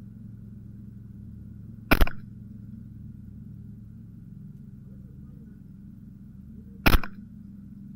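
Two shots from a .22 LR Ruger 10/22 rifle with a Kidd barrel, about five seconds apart, each a sharp crack with a short ring after it.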